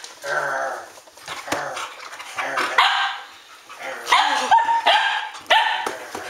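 Standard poodles barking and yipping in a series of short, excited bursts, several coming close together in the second half.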